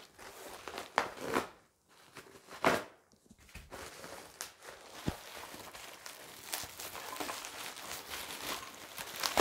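Plastic courier bag and bubble wrap crinkling and tearing as a parcel is unwrapped by hand, with a few louder crackles.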